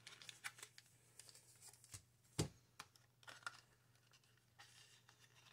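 Faint handling of a clear rigid plastic blister tray: scattered light clicks and crinkles, the sharpest about two and a half seconds in.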